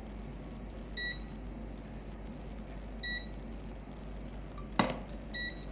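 Induction cooktop giving three short high beeps about two seconds apart, the alert it sounds while its zone is on with no pan on it, and a single sharp knock shortly before the last beep.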